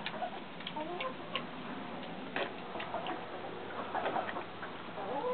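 Potbellied pig chewing and smacking food from a hand, a string of irregular wet clicks, with a few short clucks from chickens in the background.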